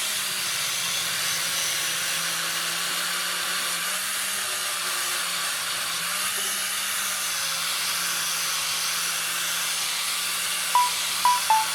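A steady, even hiss with a faint low hum under it. About a second before the end, a run of short plucked musical notes begins.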